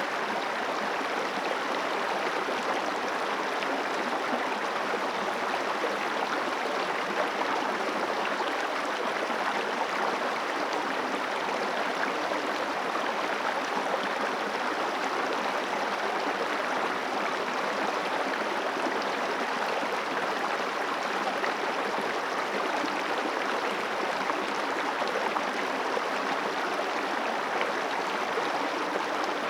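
The Guadalquivir river flowing: a steady, unbroken rush of running water.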